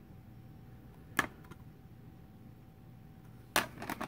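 Hard plastic PSA graded-card cases being handled: a sharp plastic click about a second in, then a louder clack near the end followed by a few softer clicks, as slabs knock against each other.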